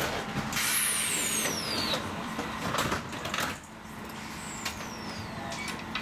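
Light-rail tram running, with a steady hum and rail noise. A high whine falls in pitch twice, alongside bursts of hiss and a few short knocks.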